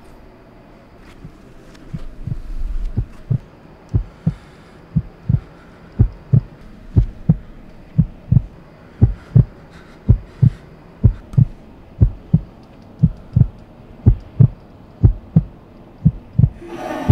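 Heartbeat sound effect: low double thumps, about one beat a second, steady and loud, starting after a low rumble swells about two seconds in.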